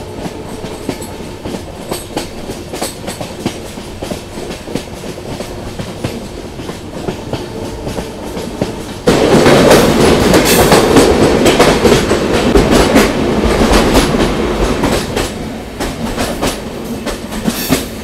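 Passenger train running, heard from an open coach door: a steady rumble with the clickety-clack of wheels over rail joints. About nine seconds in the train enters a tunnel and the noise jumps much louder, then eases off toward the end.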